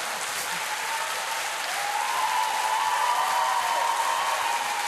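Studio audience applauding and laughing after a comedy punchline, the applause swelling a little about two seconds in.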